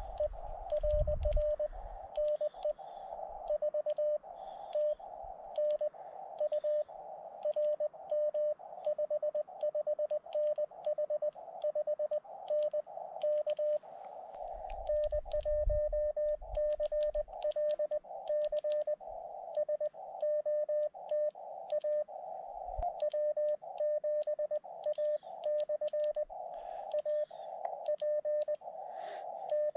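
Morse code (CW) from a portable 10-watt ham radio: a single steady tone keyed rapidly in dots and dashes over narrow-filtered receiver hiss, with small clicks throughout and a couple of low thumps.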